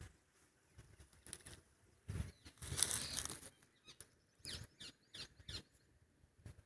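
Intermittent rustling and handling bumps from a phone being moved among leaves, with the loudest rustle about two to three and a half seconds in.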